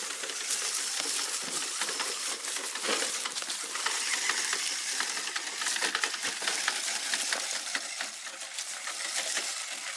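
Dense, continuous crackling and crunching of dry leaves and twigs being pushed through and trodden on in underbrush.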